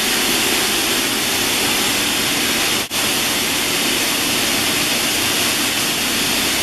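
Steady, loud rushing noise of the malt-bagging machinery running: the cyclone that separates the dried rootlets, and the screw conveyor that feeds the sacks. The noise breaks off for an instant about three seconds in.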